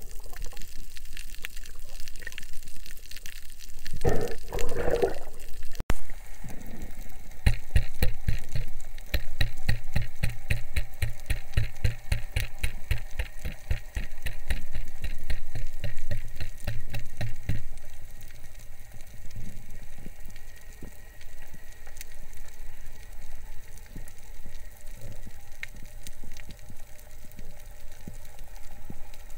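Muffled underwater noise picked up by an action camera in its waterproof housing during a dive over a reef. About seven seconds in, a rapid, evenly spaced ticking starts and runs for about ten seconds before the steady underwater noise returns.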